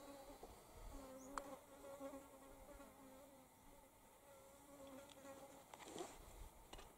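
A flying insect buzzing, a faint wavering hum that fades out after about five seconds, with a few faint sharp clicks along the way.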